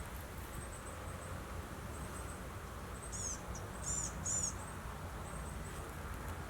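Three short high chirps from a bird, about three to four and a half seconds in, each falling in pitch, over a steady low outdoor background with faint high ticking.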